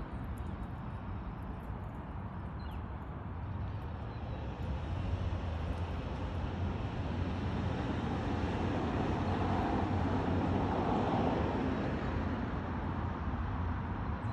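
Street traffic noise, with a vehicle going by. The sound swells from about four seconds in, is loudest around ten to eleven seconds in, then eases a little.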